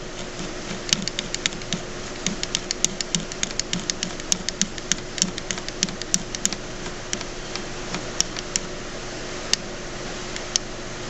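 Rapid, irregular clicks and ticks from a drill press depth stop being screwed down and adjusted. The clicks are dense for the first seven seconds, then come only now and then, over a faint steady hum.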